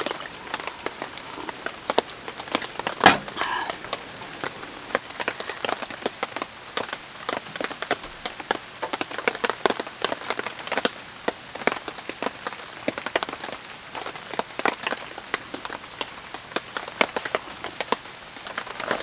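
Rain falling on the camp tarp overhead, many drops ticking at irregular moments over a steady hiss, with one sharper knock about three seconds in.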